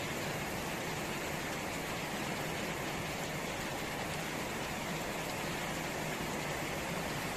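Steady rain falling on puddled ground and garden plants: an even, unbroken hiss.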